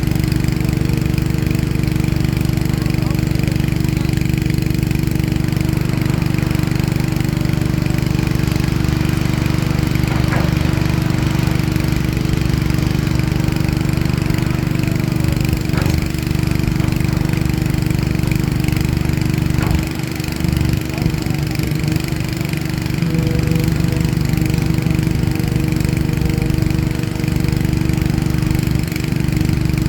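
Diesel engine of a heavy excavator running steadily, with a few faint knocks over it.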